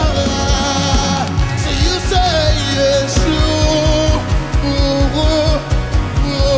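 Live worship band music: a steady drum beat under a sustained, wavering melodic line.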